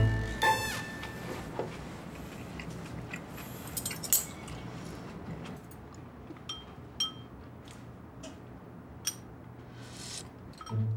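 Metal cutlery clinking and tapping against ceramic bowls at a meal, a scattered handful of light clinks, some with a brief ring.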